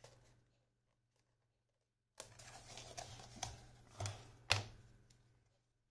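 Folded paper fan being handled and pressed flat on a cutting mat: paper rustling with a few sharp clicks and taps, the loudest about four and a half seconds in.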